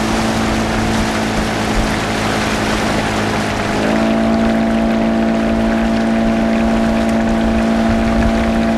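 Outboard motor driving an inflatable boat at a steady cruising speed. Its pitch steps up a little about four seconds in as the revs rise, over a steady rushing noise.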